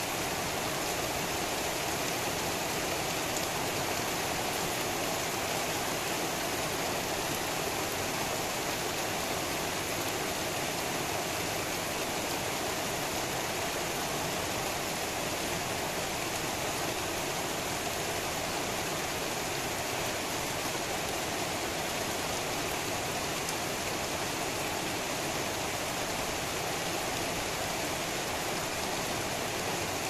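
Heavy rain falling steadily on a street and trees: an even, unbroken hiss.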